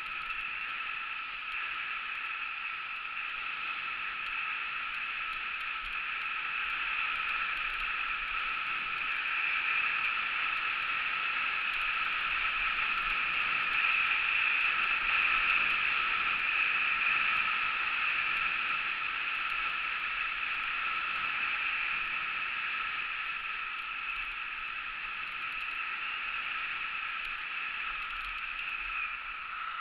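Steady rushing hiss of skis running over groomed piste snow, mixed with wind past the camera during a downhill run, muffled and a little louder midway.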